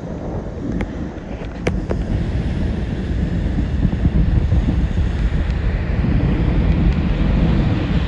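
Strong wind buffeting the microphone on a beach, with the hiss of breaking surf growing louder about three seconds in. A couple of brief high ticks within the first two seconds.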